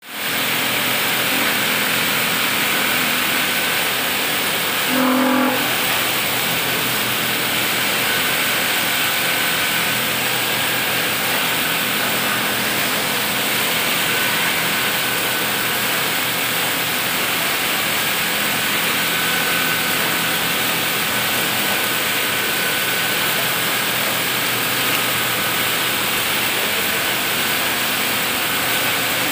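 Richpeace automatic pattern sewing machine running steadily, stitching quilting lines through a down jacket panel held in a template as its sewing head travels on the X-Y drive. A short pitched tone sounds once about five seconds in.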